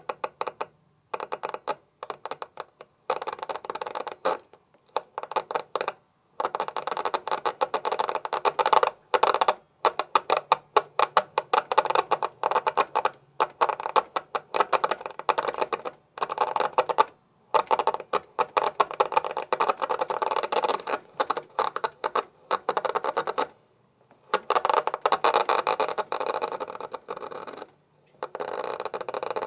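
A mutoscope's reel of cards flipping past a stop as the crank is turned: fast runs of dry clicks that break off and start again several times.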